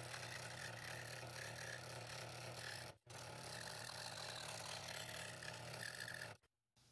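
Scroll saw running with a steady motor hum, its fine blade cutting through stacked thin walnut sheets. The sound drops out for an instant about three seconds in and cuts off abruptly near the end.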